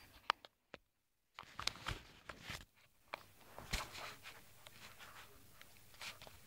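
Faint handling noises: scattered small clicks and rustling as a BB gun is handled and its magazine loaded.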